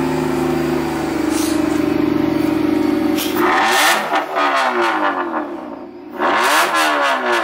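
A Honda Accord's engine idling steadily, then revved twice through the exhaust, each rev rising and falling in pitch, in a concrete parking garage.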